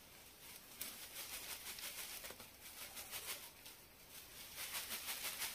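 Faint, quick rhythmic rustling of moringa (drumstick) leaf stalks being shaken, the leaves dropping off the stalks, with a click about a second in.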